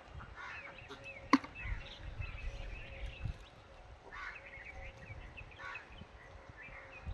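Small birds chirping in short, repeated calls over a low wind rumble on the microphone, with one sharp click about a second in.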